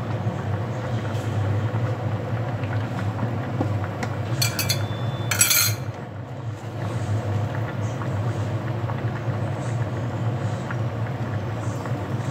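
A steady low hum, with two short bright metallic clinks about four and a half and five and a half seconds in.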